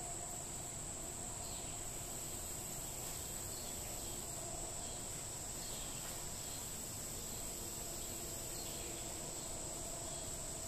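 A steady high-pitched whine over a quiet even hiss, with a few faint soft rustles.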